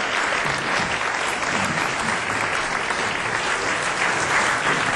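A studio audience applauding: many hands clapping together in a dense, steady sound.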